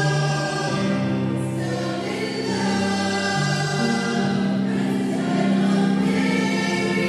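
A small mixed choir of women's and men's voices singing a hymn, the notes held long and running smoothly one into the next.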